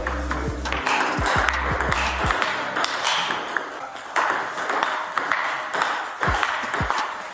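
Table tennis rally: the ball clicking sharply off the bats and bouncing on the table, over background music.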